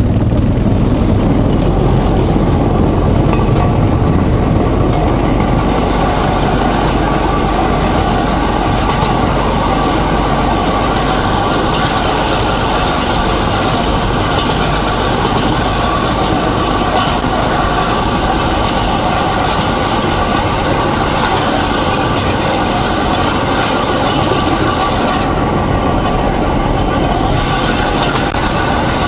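Small motorized rail trolley (draisine) running along narrow-gauge track: its small engine running steadily under the wheels' noise on the rails.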